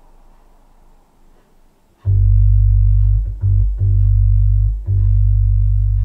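Music played back through hi-fi speakers with an active subwoofer. After about two seconds of faint hiss, a track starts suddenly with loud, long, deep bass notes, broken by two short gaps.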